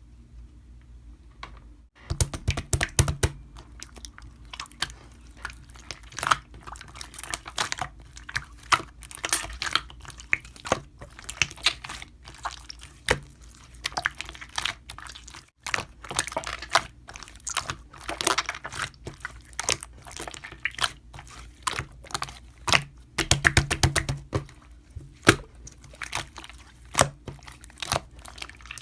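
Slime being squeezed and kneaded by hand, making a dense, irregular run of sticky clicks, crackles and wet pops.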